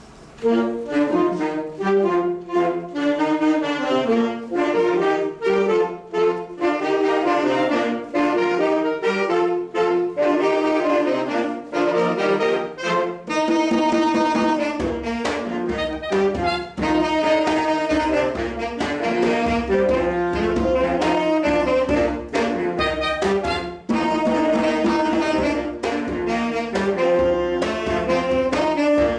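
Saxophone ensemble starting a piece about half a second in, several saxophones playing a melody together in parts; deeper bass notes join about halfway through.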